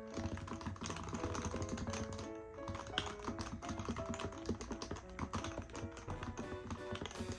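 Rapid typing on a Happy Hacking Keyboard Professional BT with fully lubed Topre switches, a fast stream of keystrokes. Background music plays with it.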